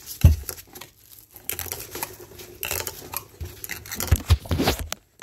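Irregular rubbing, crinkling and tapping handling noise as a foam scrub sponge is squeezed and moved about right at the phone's microphone, with a dull thump a fraction of a second in and two more near the end.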